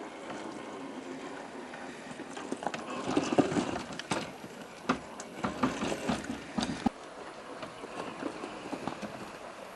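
Traxxas TRX-4 RC crawler clambering over rocks: irregular knocks and clatter of its tyres and plastic body against stone, thickest and loudest in the middle.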